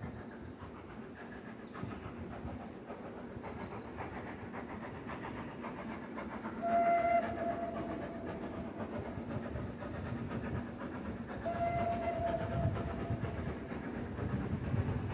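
Steam locomotive whistle blown twice, a short blast about seven seconds in and a slightly longer one about twelve seconds in, over the steady running noise of a steam train on the line.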